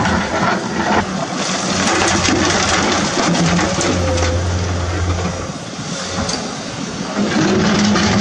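Remote-control toy excavator's small electric motors and gears whirring as it swings and works its arm, with a steady low hum that grows stronger for a moment near the middle.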